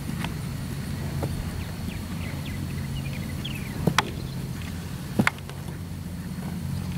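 A Trakehner mare trotting on grass, her hoofbeats soft under a steady low hum. Two sharp double clicks come about four and five seconds in.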